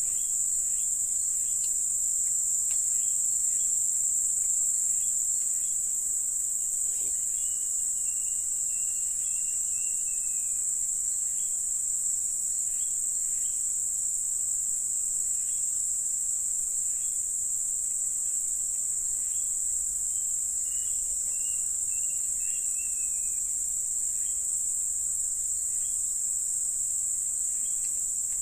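Steady, high-pitched insect chorus droning without a break. Two fainter wavering calls, each lasting a few seconds, come in about a quarter of the way in and again past two thirds.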